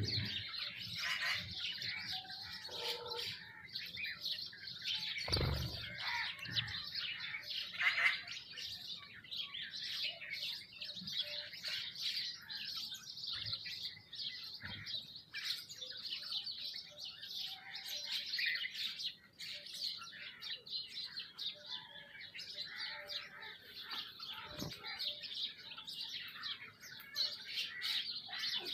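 A flock of small birds, sparrows among them, chirping busily and without pause, many short high chirps overlapping. A couple of low thumps come through, about five seconds in and again near the end.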